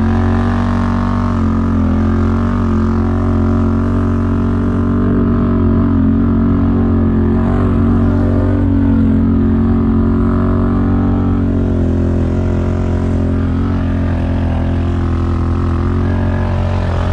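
ATV engine running steadily at an even speed, its pitch wavering only slightly.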